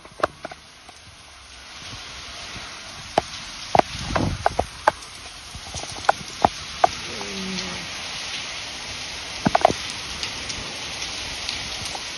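Heavy rain pouring down in a steady hiss that swells after about two seconds, with sharp, irregular taps of drops striking a nearby surface.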